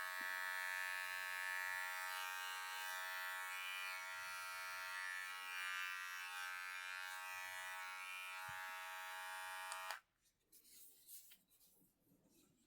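Battery-powered men's body-hair trimmer running with a steady high electric buzz, switched off abruptly about ten seconds in, followed by faint handling clicks.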